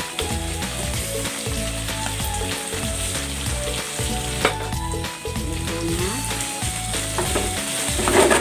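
Chicken and mushroom pieces sizzling as they fry in a sauce in a nonstick pan, with a wooden spatula stirring and scraping through them at the start and again, louder, near the end. A soft background tune plays under it.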